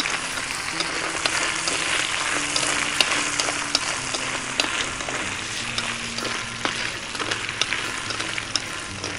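Paddy crabs sizzling in hot garlic oil in a metal wok, stir-fried and turned with long chopsticks, with a steady hiss and many small sharp pops and clicks.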